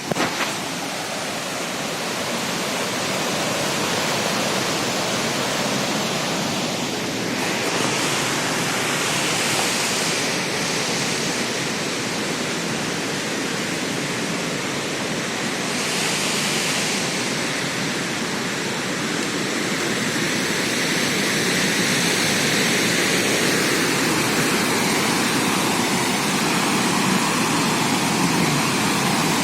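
Waterfall rushing, a steady even roar of falling water, with two brief surges of brighter hiss about a third and half way through.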